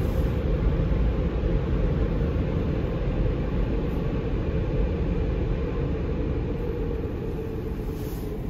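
Car wash dryer blowers running, heard from inside the car as a steady low rush of air. It grows quieter near the end as the drying cycle's countdown reaches zero.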